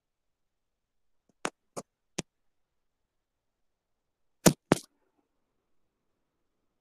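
Dead silence broken by three small sharp clicks, then two louder knocks in quick succession about halfway through.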